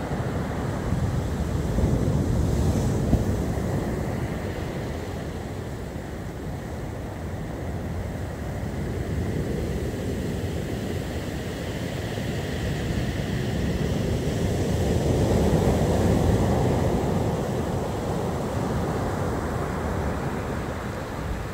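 Rough storm surf breaking and washing up the beach, a continuous heavy rush that swells about two seconds in and again in the last third. Wind buffets the microphone.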